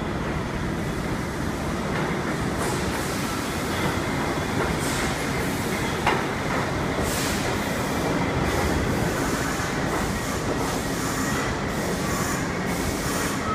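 New York subway R62A train pulling into an underground station: a steady rumble of steel wheels on rail with repeated clatter as the cars pass. About six seconds in there is a sharp click with a brief squeal.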